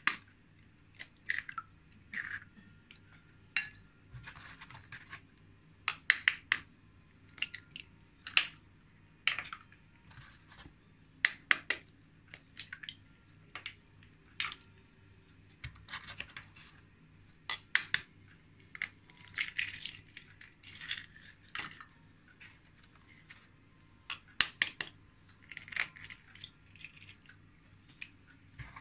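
Raw eggs being cracked open one after another with a knife: sharp taps of the blade on the shell and the shell cracking, in small clusters of clicks every second or two.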